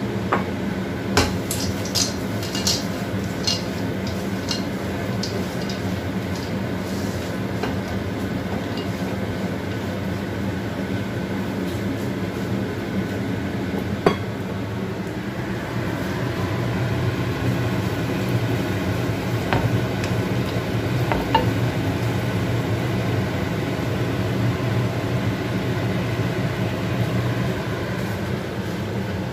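Wooden spatula stirring frying peanuts and dried anchovies in a wok, scraping and knocking against the pan. There is a quick run of sharp, briefly ringing knocks in the first few seconds and single knocks about halfway and a little after, all over a steady hum.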